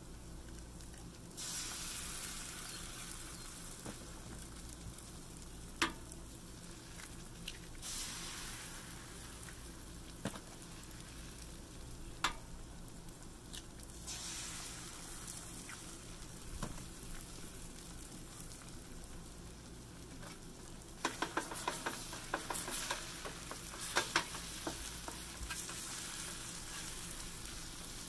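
Eggs frying on a hot Blackstone flat-top griddle: a steady sizzle that swells several times as fresh eggs are cracked onto the plate, with a few sharp taps of shells being cracked. Near the end, a run of quick clicks as a utensil breaks up the eggs on the griddle.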